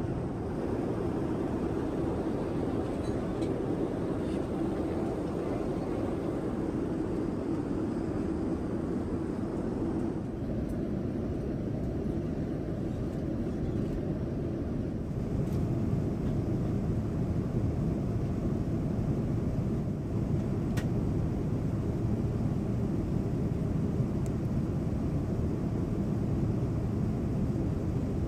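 Airliner cabin noise: the steady rumble and rush of engines and airflow. A faint hum fades about ten seconds in, and the low rumble grows a little stronger about fifteen seconds in.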